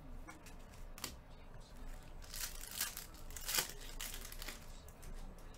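Trading-card pack wrapper being torn open and crinkled by hand: a few soft clicks, then a run of crackling rustle from about two seconds in, loudest a little past the middle.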